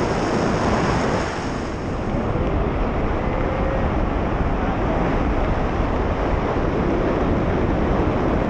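Steady rush of wind buffeting the camera microphone during a tandem parachute descent under an open canopy.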